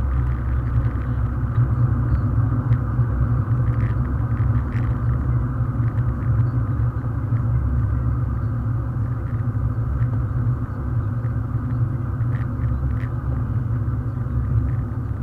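Mazda MX-5 driving along at road speed, its engine and tyre noise heard as a steady low rumble from inside the cabin.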